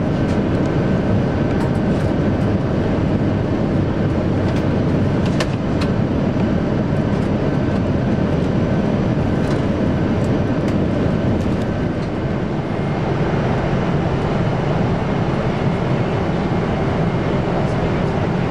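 Steady cabin noise of a Boeing 747-8 airliner in cruise: a deep, even rush of airflow and engine drone, with a few faint clicks.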